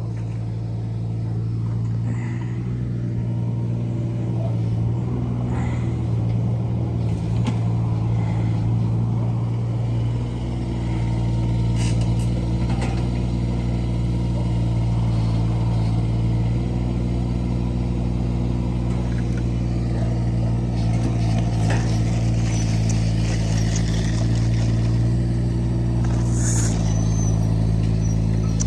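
Engine of heavy construction equipment running steadily at one pitch, with a few sharp knocks and clanks of digging and demolition work over it.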